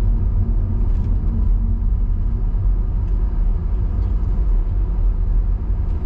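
Steady low rumble of a diesel car driving on a motorway, heard from inside the cabin: engine and tyre noise.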